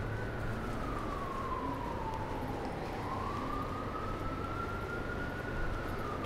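A distant emergency-vehicle siren in a slow wail: it falls in pitch, rises again about halfway through, then starts falling once more near the end, over a low steady rumble.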